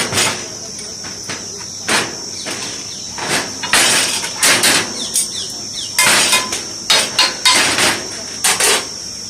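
Irregular metal clanks and knocks of hot sizzler plates and cookware being handled, with a few short bursts of hiss between the knocks.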